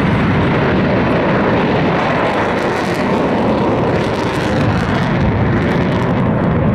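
Boeing F/A-18 Hornet fighter jet's twin turbofan engines, loud and steady jet noise with no clear rise or fall.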